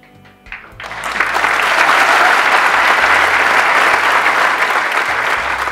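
Hall audience applauding, breaking out about a second in and carrying on as steady, dense clapping.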